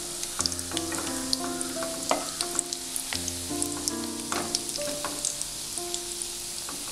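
Breadcrumb-coated bread rolls frying in hot oil: a steady sizzle with many small crackles.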